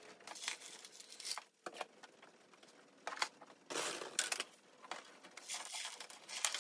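Irregular crinkling and rustling of a bag of clay pebbles being handled and scooped from, with scattered rattles of the pebbles. It comes in short bursts with quiet gaps between them.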